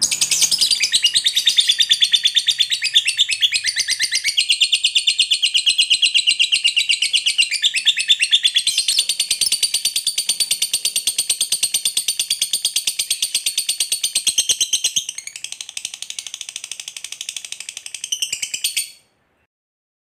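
A lovebird's "ngekek panjang": one long, unbroken chattering trill of shrill, rapidly repeated notes. It drops a little in loudness about fifteen seconds in and cuts off suddenly near the end.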